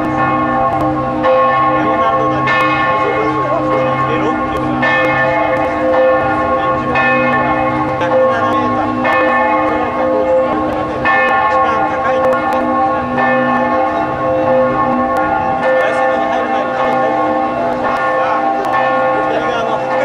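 Several church bells of Florence Cathedral's bell tower ringing together in a continuous peal. Bells of different pitch strike about every second or two, and their tones overlap and hum on between strokes.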